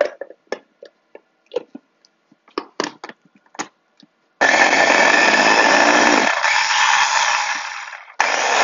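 Ninja food chopper: a run of clicks and knocks as the motor head is seated on the bowl, then about four seconds in the motor runs loudly for nearly four seconds, whipping a stick of butter with garlic and Cajun seasoning. It stops for a moment near the end and starts again.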